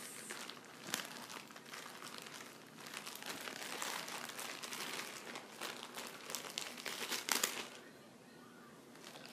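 Plastic packaging of a hair bundle crinkling and rustling as it is handled and opened, with many small crackles; it grows louder in the middle and quietens near the end.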